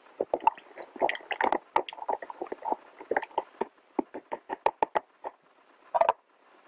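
A plastic food pouch of freeze-dried meal with hot water in it, crinkling and rustling in many irregular crackles as it is stirred and kneaded by hand, with a dense flurry of crackles about six seconds in.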